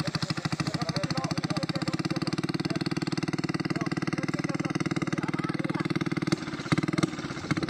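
Small motorcycle engine running steadily with rapid, even firing pulses, then faltering near the end with a couple of sharp knocks.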